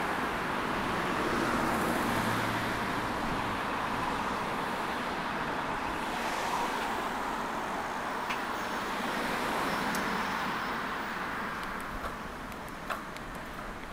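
Road traffic going by, a steady hiss of tyres and engines that swells as vehicles pass about two seconds in and again around ten seconds in. A few light clicks come near the end.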